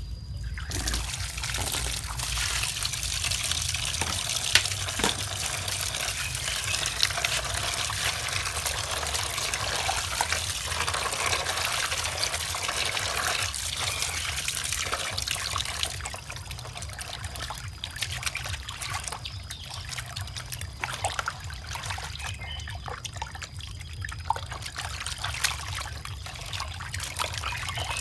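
Water running and trickling while frog meat is washed and rubbed with coarse salt, with small splashes and clicks of handling. The flow gets quieter about halfway through.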